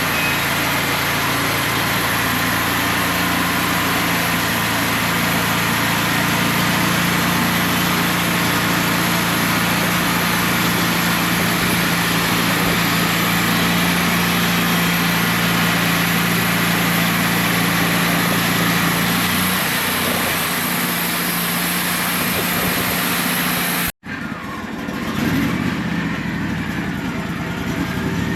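Engine of a Wood-Mizer portable band sawmill running steadily while it saws, its note changing about 19 seconds in. About 24 seconds in the sound cuts off abruptly and a different, quieter mechanical sound follows.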